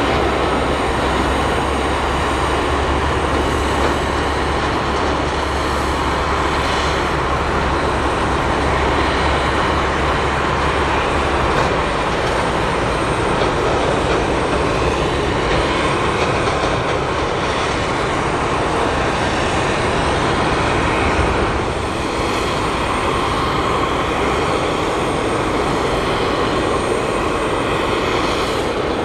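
Jet airliner engines running, a steady loud noise spread across low and high pitches, with a deep low rumble underneath that stops about twelve seconds in.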